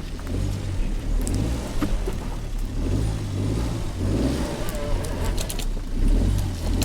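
Suzuki Jimny JB64's 660 cc turbocharged three-cylinder engine running at low revs as the vehicle crawls along a rough forest track, with a few light knocks and clicks over the rumble.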